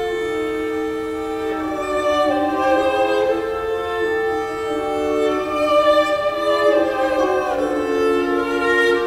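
Slow classical string music, violin and cello holding long overlapping notes in several parts, played back over hi-fi loudspeakers driven by a Tonewinner AD-99D integrated amplifier.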